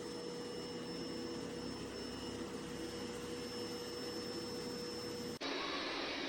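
MOVA P10 Pro Ultra robot vacuum running: a steady motor and fan noise with a thin whine, which changes abruptly near the end to a brighter steady hiss.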